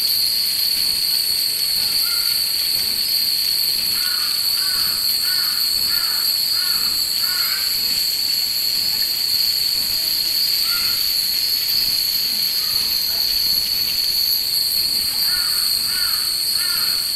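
A crow cawing in two runs of several harsh caws, with single caws between, over a steady high-pitched drone of summer cicadas.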